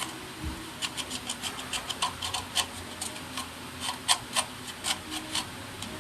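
Slime being squeezed and poked, giving a string of sharp, irregular clicks and pops, a few each second.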